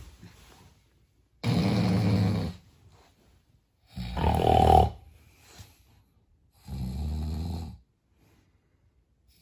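A man snoring in his sleep: three loud snores, each about a second long, coming about every two and a half seconds, the middle one the loudest.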